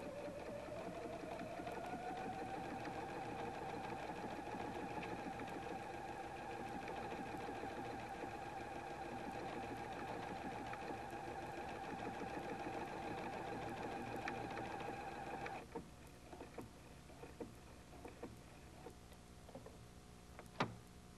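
Husqvarna Viking Platinum 770 computerised sewing machine sewing a programmed line of lettering. Its motor whine rises in pitch as it comes up to speed at the start, runs steadily, then stops abruptly about three-quarters of the way through. A few light clicks follow, with one sharper click near the end.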